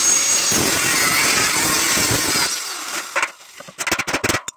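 Angle grinder running against the steel hinge weld on a galvanized tube gate frame, fading out after about two and a half seconds. A quick series of hammer blows on the steel hinge follows, knocking the cut hinge loose.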